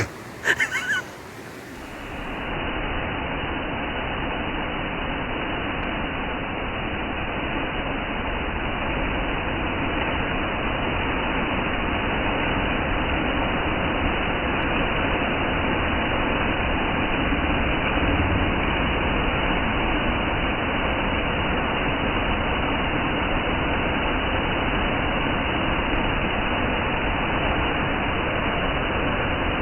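Göksu waterfall: water falling and rushing in a steady, even roar without let-up. A brief loud sound comes in the first second, before the roar sets in.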